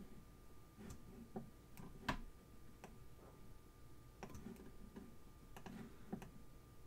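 Scattered clicks of a computer mouse, about ten at irregular intervals, the loudest about two seconds in.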